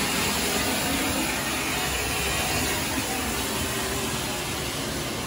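Firework fountain spraying sparks, with a steady hiss that slowly dies down near the end.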